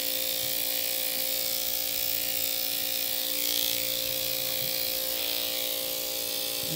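Corded electric dog grooming clippers running with a steady hum while clipping a puppy's fur under the tail.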